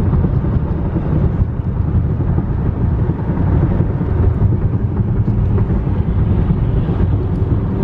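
Steady low rumble of a car driving, heard from inside the cabin: road and wind noise.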